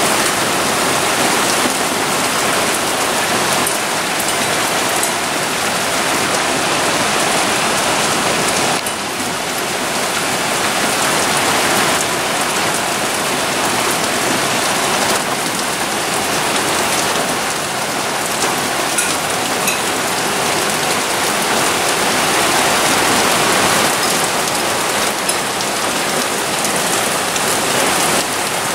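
Heavy thunderstorm rain falling steadily on foliage, paving and wooden decking: a dense, even hiss of drops.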